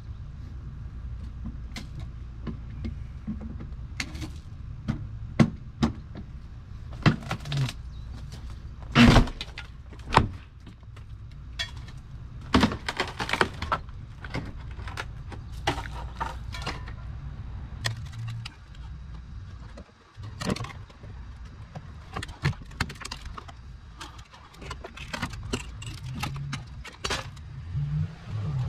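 Rotted wooden rim joist being pried and ripped out by hand: irregular knocks, cracks and scrapes of wood and metal, loudest about nine to thirteen seconds in.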